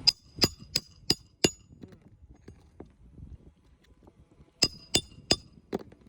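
Hammer blows with a sharp metallic clink during shingle roof repair work: five quick strikes at about three a second, a pause of about three seconds, then four more near the end.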